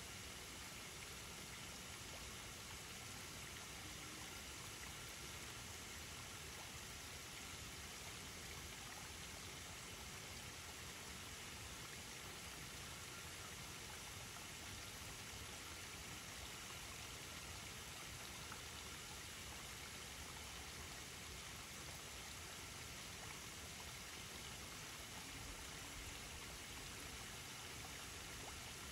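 Faint steady hiss, an even wash of noise with no distinct splashes, clicks or other events.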